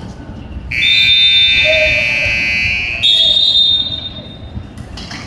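Electronic arena buzzer sounding for about three seconds, its tone shifting higher partway through, over faint crowd and room noise.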